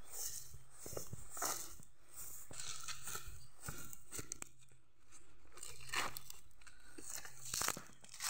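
Footsteps through tall grass and dry fallen coconut fronds, with irregular crunching and rustling at each step.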